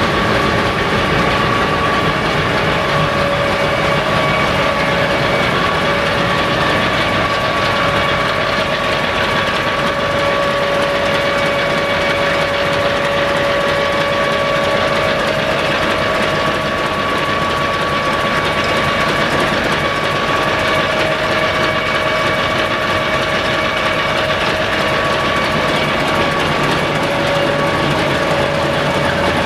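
Kolomna 5D49 V16 diesel engine of a BR232 'Ludmilla' locomotive running, heard close up in the engine room: a loud, steady mechanical din with a steady whine over it.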